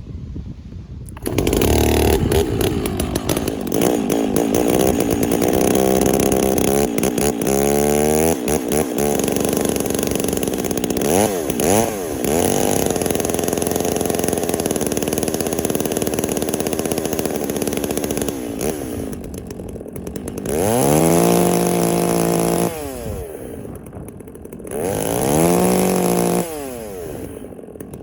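Two-stroke chainsaw revved up and down off the wood to run in a new bar and chain, coming up to speed about a second in. Its pitch climbs and falls repeatedly, dropping back to idle a few times near the end between shorter revs.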